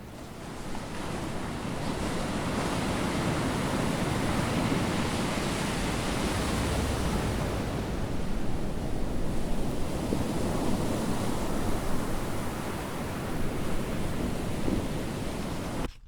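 Steady rushing, surging noise sound effect, building up over the first two seconds and cutting off abruptly at the end.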